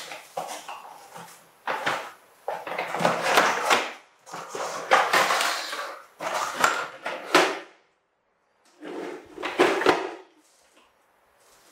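Plastic toy dump truck scraping, rattling and knocking on a wooden floor in a run of irregular bursts as a baby monkey pushes and flips it over. The noise stops for about a second some eight seconds in, then comes back in a shorter burst.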